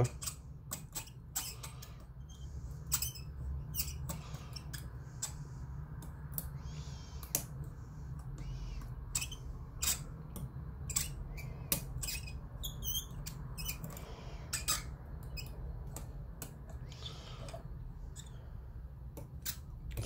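Rotor pick working the pins of a Cisa Astral lock under light tension: small irregular metallic clicks and scrapes as the pins are felt for binding. A steady low hum runs underneath.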